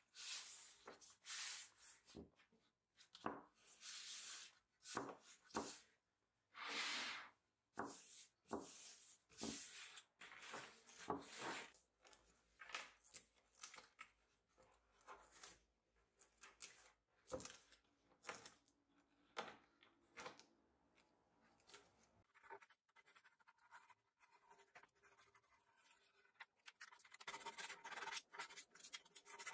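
Hands rubbing, sliding and pressing thin wood veneer sheets and wooden pieces over a wooden table top, in short irregular scratchy strokes. After a quieter stretch, a faster continuous scratching starts near the end.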